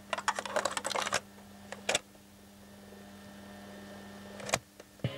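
Plastic cassette being handled and pulled from a radio cassette recorder's open cassette door: a quick run of clicks and rattles in the first second, two more clicks at about two seconds, then one sharp mechanical click of a piano-key button about four and a half seconds in. A low steady hum runs underneath.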